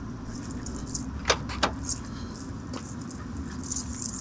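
A car's rear hatch opening: two sharp latch clicks about a third of the way in, then keys jangling near the end, over a steady low rumble.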